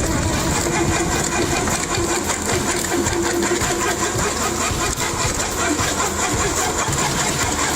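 An engine running steadily, driving machinery, with a held mid-pitched tone that drops in and out.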